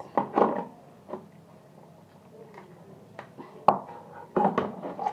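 Irregular knocks and clinks of dishes and a plastic container at a kitchen sink while raw chicken pieces are handled. There is a cluster of clatter near the start, a single sharp click a little past halfway, and more clatter near the end.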